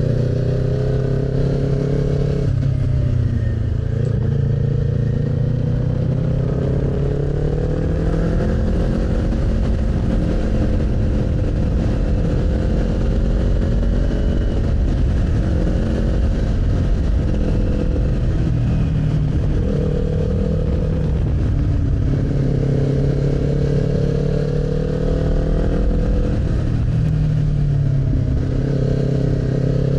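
Kawasaki Z400's parallel-twin engine running under way while riding, its pitch rising and falling several times as the throttle and gears change.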